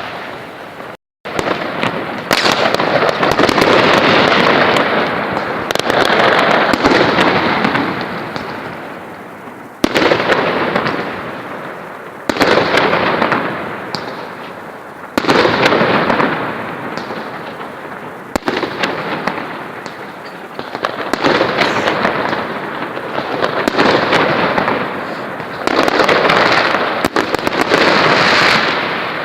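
New Year's fireworks going off continuously: a dense crackle of many bangs that swells and fades in waves, each new volley starting sharply every few seconds.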